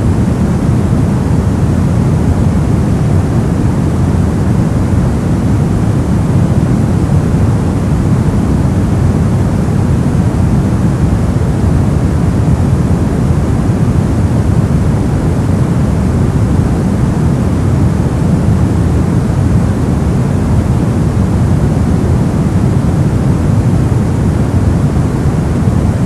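Brown noise: a steady, deep rumbling hiss with most of its energy in the low end and the highs rolled off, unchanging throughout.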